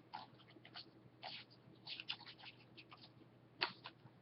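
Faint, irregular small clicks and light rustles of objects being handled at close range, a dozen or so short ticks spread across a few seconds.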